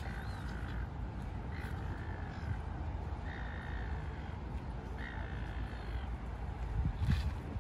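A bird cawing: four drawn-out, harsh calls about a second and a half apart, over a steady low rumble.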